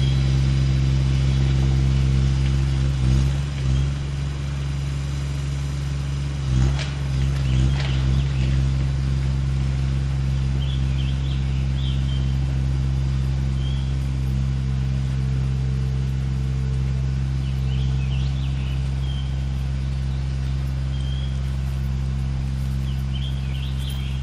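An engine running steadily off to one side, a constant low hum. There are a few dull knocks about three seconds in and again around seven seconds, and faint bird chirps now and then.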